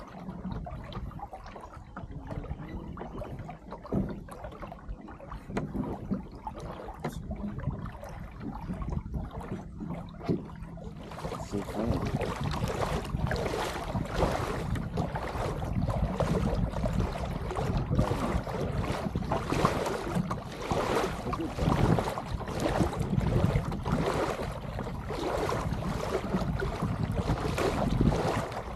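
Water rushing and splashing along the hull of a small sailboat under way, mixed with wind buffeting the microphone. About eleven seconds in the sound turns suddenly louder and brighter.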